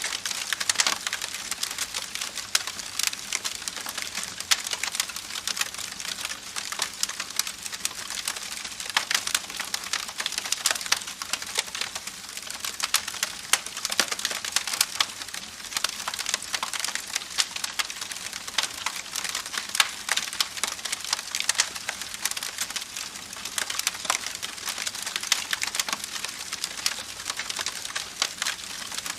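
Campfire burning: wood crackling and popping at irregular, rapid intervals over a steady hiss of flame.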